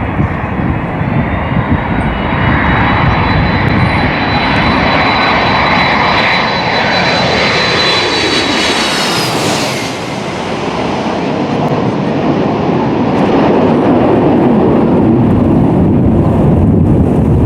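Jet airliner passing close on its landing approach. The high engine whine builds, then drops in pitch as the aircraft goes by about nine seconds in, and a louder rushing engine roar follows.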